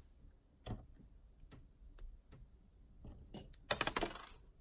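Small LEGO minifigure parts clicking faintly as they are handled and pressed together, a few scattered ticks, then a louder brief clatter near the end.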